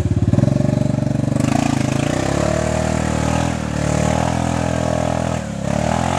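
Yamaha Grizzly 700 ATV's single-cylinder engine revving under load while the quad sits bogged down in a mud hole. The revs rise about a second and a half in, hold, and drop back near the end.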